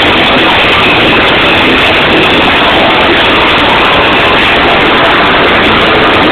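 Live hardcore punk band playing loud, recorded through an overloaded microphone so that it comes across as a dense, distorted wall of noise.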